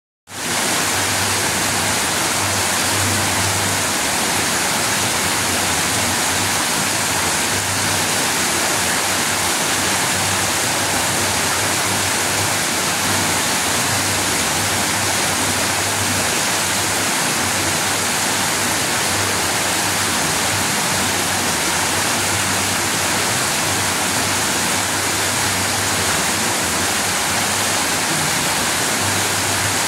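Shallow river water rushing over rock ledges in a small cascade: a steady, full hiss of falling and running water.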